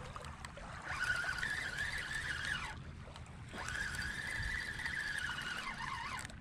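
Spinning fishing reel being cranked to retrieve line, its rotor and gears whirring at a steady pitch in two stretches of a second or two. Each stretch drops in pitch as the cranking slows and stops.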